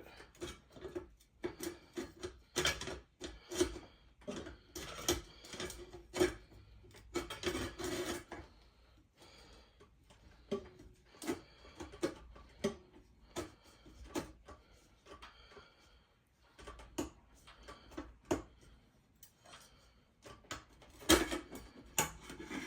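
Irregular clicks, taps and scraping of hands fitting the light cover onto a ceiling fan, busiest in the first eight seconds, sparser in the middle, with a louder cluster of knocks near the end.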